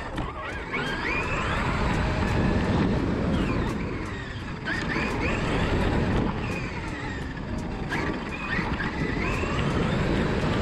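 Traxxas X-Maxx RC monster truck's brushless electric motor whining, rising and falling in pitch several times as the throttle is worked, over a steady rumble from the tyres and chassis bouncing across rough grass.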